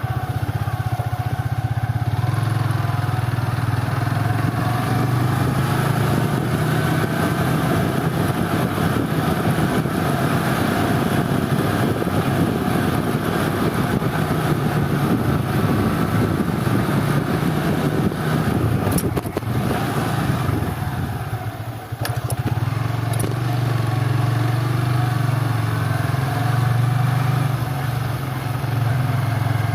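Engine running steadily under a rushing noise. It eases off about twenty seconds in, then picks up again.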